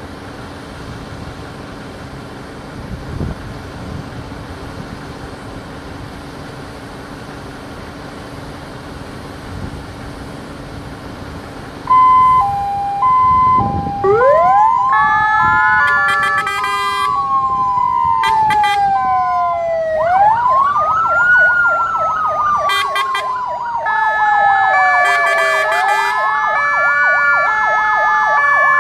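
Fire engines idling, then about twelve seconds in their sirens start: first a two-tone hi-lo horn, then a rising and slowly falling wail that repeats about every six seconds, with several sirens sounding together. The sirens are sounded in tribute at the W-Hour (Godzina W) commemoration.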